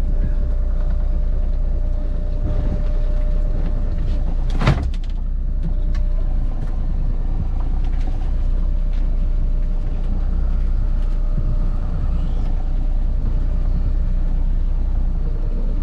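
Boat engine running steadily, a loud low rumble, with one sharp knock a little under five seconds in.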